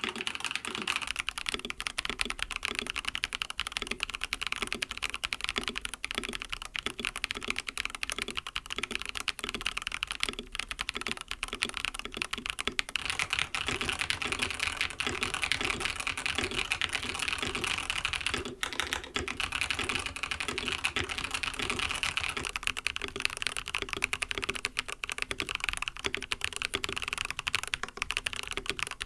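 Continuous fast typing on a fully lubed mechanical keyboard: an mStone Groove T case with lubed 45 g MMD Coral tactile non-click switches and silicone plate foam, a dense run of soft keystroke clacks. The tone of the clacks changes about 13 seconds in.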